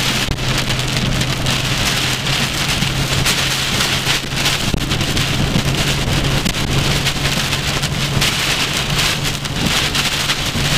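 Heavy rain striking a moving car's roof and windshield: a dense, steady hiss of drop impacts heard from inside the cabin, with a low steady hum of the car running underneath.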